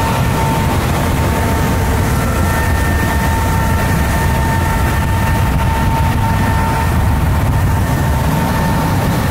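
Steady road and engine noise heard inside a car cruising at highway speed right beside a coach bus: a deep, even rumble with a thin, steady whine over it.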